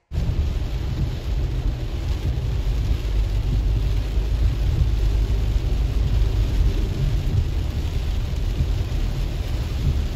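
Heavy rain beating on a moving car's windshield and roof, heard from inside the cabin, over a steady low rumble of the car driving on the wet road.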